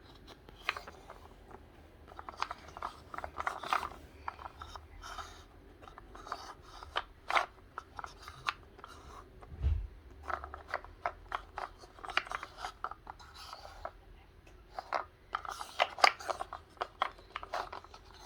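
Wooden puzzle pieces clicking and scraping against a wooden puzzle board as they are lifted out and fitted back in, in irregular taps and rubs, with a low thump about ten seconds in.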